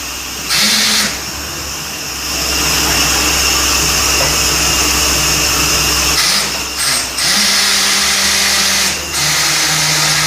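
Borewell drilling rig running: a loud, steady machine drone with hiss, and a few short louder surges of hiss.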